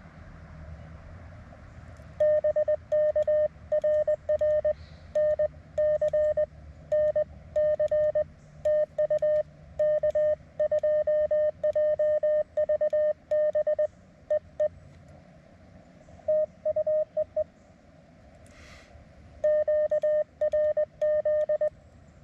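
Morse code (CW) from an amateur radio transceiver: a single steady-pitched tone keyed in dots and dashes over the receiver's hiss. It comes in a long run from about two seconds in, a short burst in the middle and another run near the end, as part of a contact exchange.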